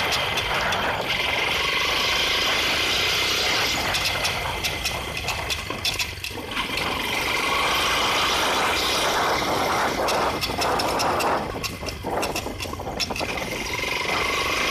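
Shineray 250 motorcycle running with its slack drive chain knocking: irregular clicks rattle over a steady noisy engine sound, easing off briefly twice. The knock is the sign of an untensioned, loose chain.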